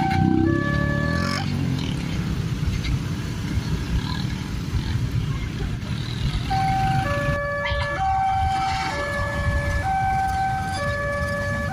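Railway level-crossing electronic warning alarm playing its repeating melody of steady stepped tones; it stops about a second and a half in as the barriers lift. Motorcycle engines and traffic noise fill the gap, then the crossing alarm melody starts again about six and a half seconds in.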